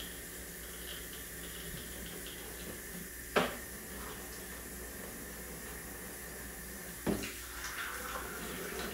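Steady hiss of room noise, broken by two sharp taps about three and a half seconds apart as glue bottles and cardboard are handled on a table.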